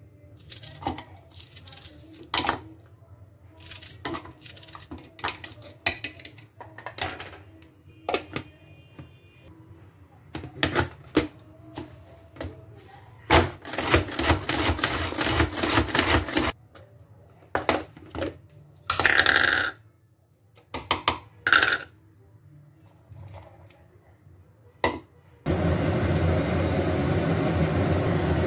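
Knife slicing a red onion by hand, with scattered small clicks and knocks. About halfway through, a hand-operated vegetable chopper is worked for about three seconds with a quick rattling whirr. Near the end a steady sizzle starts suddenly and keeps going: cumin seeds frying in hot oil in a pan.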